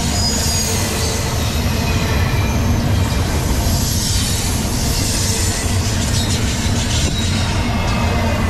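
Double-stack intermodal freight train rolling past at speed: a steady rumble and clatter of the well cars' wheels on the rails, with faint high wheel squeals.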